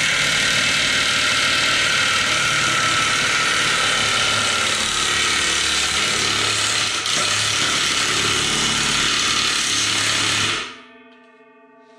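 DeWalt cordless impact wrench hammering steadily on the seized nut at the end of a disc harrow's gang shaft. It runs without a break, cuts off about three-quarters of the way through, and leaves a faint ringing tone. This run is the one that frees the nut.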